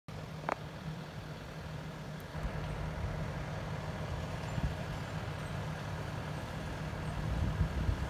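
Dump truck's diesel engine running as the truck drives slowly closer over a dirt track: a steady low drone that grows slightly louder toward the end. A short click about half a second in.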